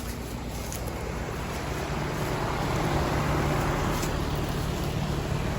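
Outdoor heat-pump unit running: fan air rushing over a steady low compressor hum, growing louder over the first few seconds and then holding steady.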